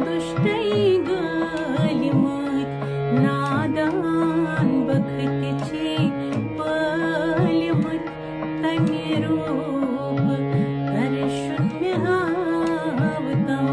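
A woman singing a Kashmiri devotional bhajan to Durga, over an accompaniment of repeated drum strokes and held instrumental tones.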